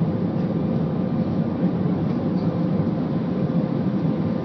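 Steady cabin noise inside a jet airliner in flight: the engines and the airflow make an even, deep rumble, with a faint steady hum above it.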